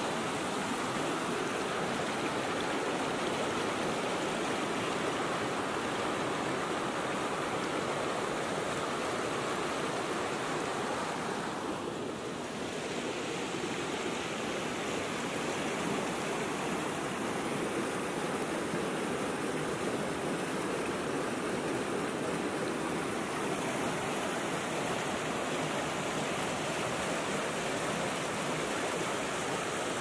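Mountain stream rushing and splashing over rocks and small cascades, a steady loud wash of water with a brief dip about twelve seconds in.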